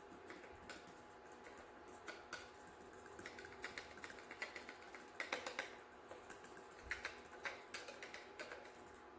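Small metal strainer tapped with a metal utensil to sift activated charcoal powder onto wet soap: faint, irregular light clicks and taps, thicker in the second half.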